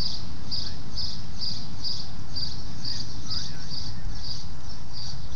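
Insects chirping steadily in a high, even rhythm of about two chirps a second, over a continuous low rumble.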